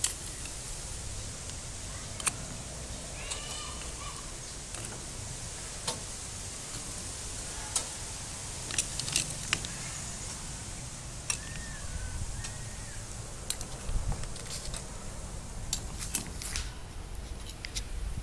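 Scattered sharp clicks of clam shells knocking together as they are handled in a plastic basket, over a steady outdoor hiss with a few short bird chirps.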